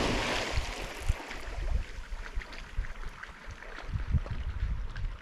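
A dog's splash into a lake dying away as the spray falls back, then fainter splashing and lapping as it swims out. Wind rumbles on the microphone now and then.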